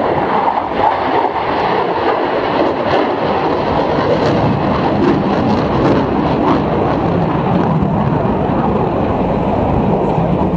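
Aircraft engine noise from a plane flying over: a loud, steady rush, growing deeper in the second half.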